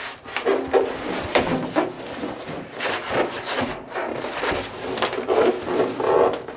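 A sheet of 2-inch foil-faced polyiso foam board being pushed and shifted by hand against the steel ceiling of a shipping container: irregular scraping and rubbing with sharp knocks.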